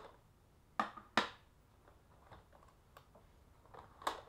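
Plastic ink pad cases being handled and set down on a wooden tabletop: a few sharp clicks and taps, two close together about a second in and another near the end.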